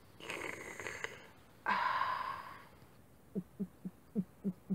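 Drinking noises: two breathy gasps in the first three seconds, the second louder, then a steady run of short low gulps, about four a second, starting past the middle.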